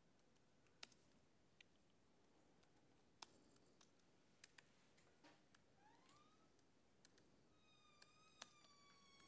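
Near silence broken by sparse, irregular laptop keyboard keystrokes as a terminal command is typed. From about six seconds in, a faint high tone rises and then holds with a slight waver until the end.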